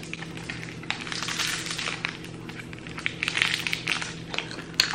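Faint crackles and small clicks from a piece of chewy pistachio candy being bitten into and handled, over a low steady hum.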